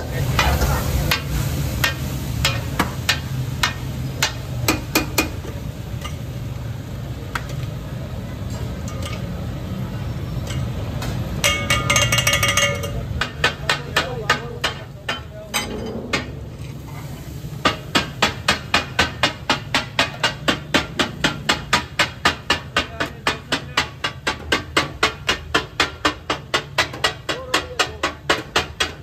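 Two flat metal spatulas chopping and clanging on a large tawa griddle as fish katakat is cut up, irregular at first and then a fast steady beat of about three to four strikes a second from about two-thirds of the way in.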